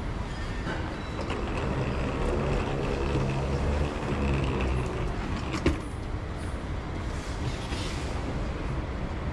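Low rumble of a vehicle running, with a pitched motor hum rising out of it for a few seconds and one sharp knock just past the middle.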